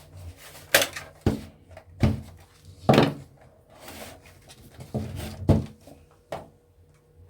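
Plastic casing of a Sky set-top box being handled and unclipped during teardown: a series of sharp clicks and knocks at irregular intervals.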